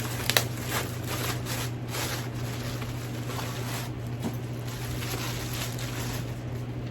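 Rustling and handling noise as a handbag and its packaging are handled, with a sharp click about a third of a second in. A steady low hum runs underneath.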